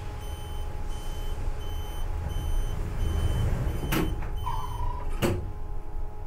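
Gondola cabin's alert beeping, a short high beep repeating about three times every two seconds over a low steady hum. The beeping stops about four seconds in, and two sharp clunks follow a little over a second apart, with a brief lower tone between them.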